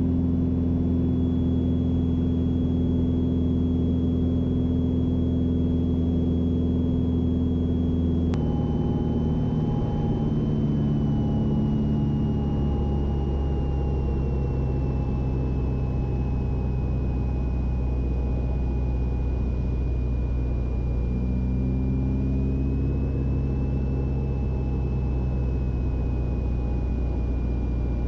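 Single-engine Mooney's piston engine and propeller droning steadily in the cockpit on final approach. About eight seconds in there is a click and the engine note steps down, then keeps sinking slowly, as power comes back for the landing.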